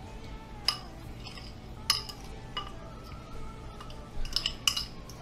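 Metal spoon scraping and clinking against a glass bowl as thick cheese sauce is spooned out: a few separate clinks, then a quick run of them near the end.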